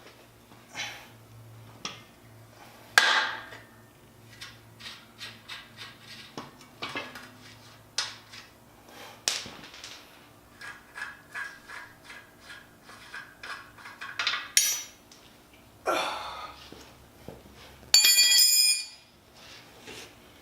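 Hand tools knocking and clinking on metal car parts, with runs of short, evenly spaced strokes. Near the end comes a loud metallic clang that rings on briefly.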